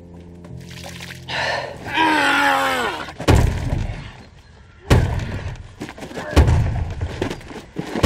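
Fight-scene blows: four heavy thumps about a second and a half apart. They follow a drawn-out falling pitched sound, and music fades out at the start.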